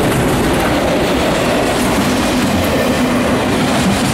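Freight train of autorack cars rolling along the track, with a steady, loud noise of steel wheels on rails.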